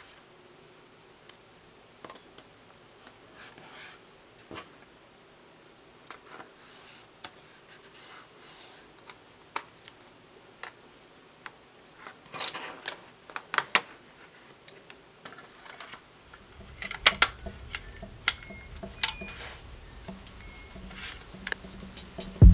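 Hands pressing masking tape and paper onto a cutting mat, then setting down and handling plastic and metal watercolour palettes: soft rustles and scattered small clicks and taps, busiest toward the second half. A faint low hum joins about two-thirds of the way through.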